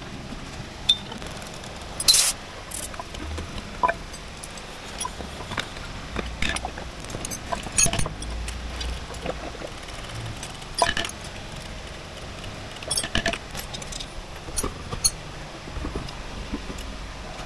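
Metal hand tools and brake parts clinking and tapping at irregular intervals during work on a car's rear wheel brake, over a steady low rumble. The loudest clink comes about two seconds in.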